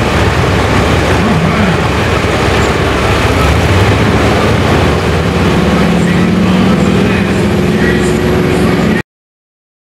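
International Harvester 1066 Turbo tractor's turbocharged six-cylinder diesel running at low speed as the tractor drives off after its pull. Its pitch rises and falls briefly about a second in, then it runs steadily. The sound cuts off suddenly about nine seconds in.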